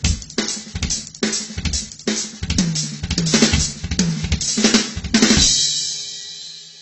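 Acoustic drum kit played as a fast paradiddle-based lick across snare, toms and bass drum. A few seconds in it ends on a cymbal crash that rings out and fades away.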